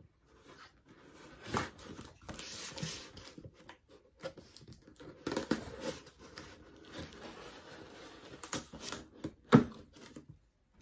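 Knife blade slicing the packing tape along the seams of a cardboard box, with scratchy tearing and crinkling of tape and cardboard and a few sharp knocks. The loudest knock comes near the end, as a flap is pulled open.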